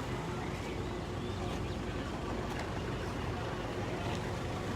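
A vehicle engine running steadily at low speed: a constant low rumble with a steady hum.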